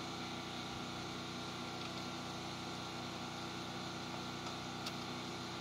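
Steady low mechanical hum, like a motor running, with one faint click about five seconds in.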